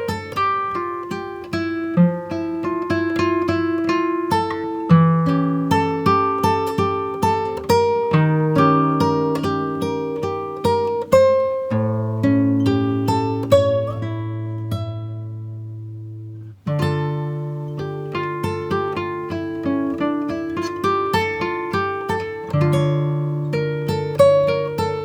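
Background music: acoustic guitar picking a steady run of single notes. About halfway through, a low chord is left to ring for several seconds and dies away before the picking resumes.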